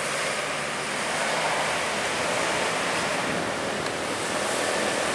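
Steady rushing roar of road traffic passing close by, tyre and engine noise with no horn sounding.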